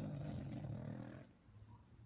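English bulldog puppy snoring in its sleep: one long snore breath that stops a little over a second in, followed by a quiet pause.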